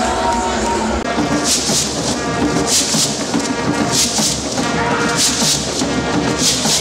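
Lively music with a regular percussion beat, coming in about a second in.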